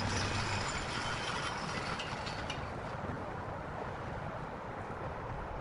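Steady rumble of heavy machinery and traffic, with a brief rattling, clicking clatter about two seconds in.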